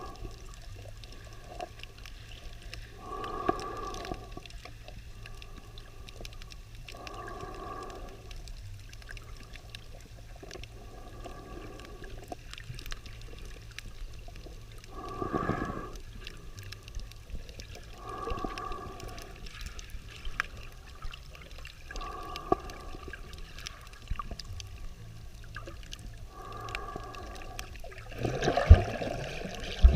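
A swimmer's breathing heard underwater, muffled and resonant, with a breath coming about every four seconds. Near the end comes a louder rush of bubbles or water.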